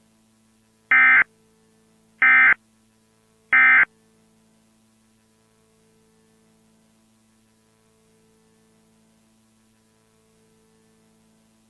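Three short bursts of Emergency Alert System SAME data tones, sent about a second apart: the End of Message code repeated three times to close the alert. A faint steady hum follows.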